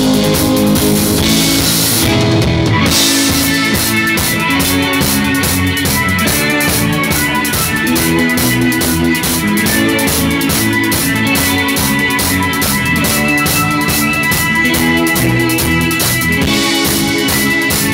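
Live band playing an early-1960s rock instrumental: keyboard, electric guitar and a drum kit keeping a steady beat.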